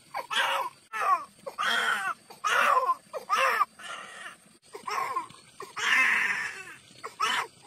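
Toddler crying in a run of short wails, about one a second with brief gaps between; the longest and strongest comes about six seconds in.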